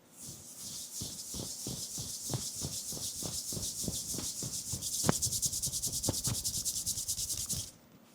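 Hands rubbing briskly through hair and over the scalp during a head massage, a fast even rhythm of hissing strokes that stops abruptly near the end.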